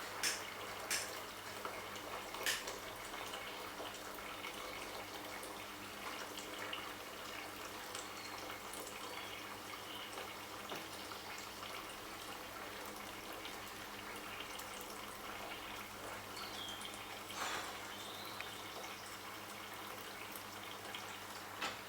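Water being poured or filled into a cooking pan, a faint steady trickle, with a few light clinks and knocks of kitchenware.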